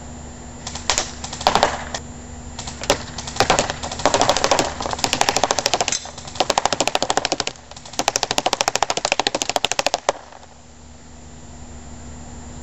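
JG SIG 552 airsoft electric rifle shooting BBs at a paper target: a few single shots, then several rapid full-auto bursts, with the BBs rattling into the target, stopping about ten seconds in.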